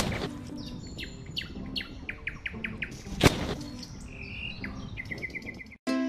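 Small birds chirping in quick short calls, again and again, with two sharp knocks: one at the start and one about three seconds in.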